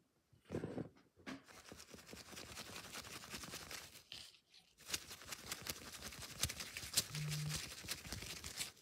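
Corn husk on a cooked ear of corn rustling and tearing as it is shaken and worked by hand to slide the cob out: two long spells of dense crackling with a few sharper snaps.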